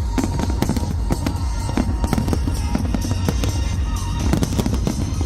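A fireworks display going off continuously: rapid bangs and crackles over a deep, rolling rumble, with music playing underneath.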